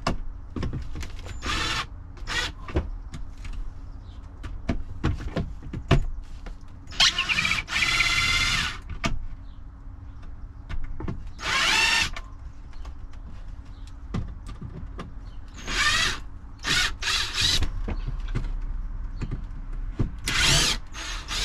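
Power drill running in several short bursts, the longest about two seconds, with clicks and knocks of handling in between.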